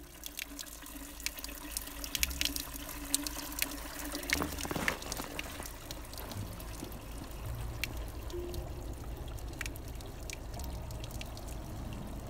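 Water trickling from outdoor taps and dripping off icicles, with many sharp, irregular drips and splashes over a steady trickle.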